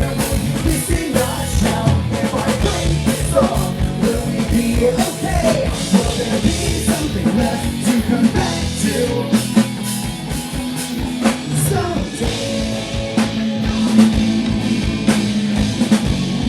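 Live rock band playing through a sound check: drum kit, electric guitar and bass with a singer. The vocal line is most apparent in the first half, and held guitar and bass notes carry the second half.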